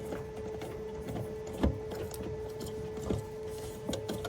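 A steady low hum with a few light clicks and one sharper knock about one and a half seconds in, as of small hardware being handled during a hatch repair.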